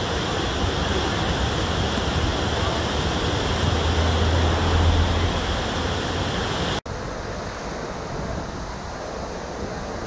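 Water rushing over a river weir, a steady white-water noise. It breaks off for an instant about seven seconds in, then carries on quieter and duller.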